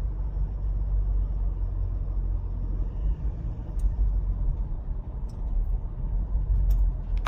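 Car driving along a road: a steady low rumble of engine and tyres, with a few faint ticks.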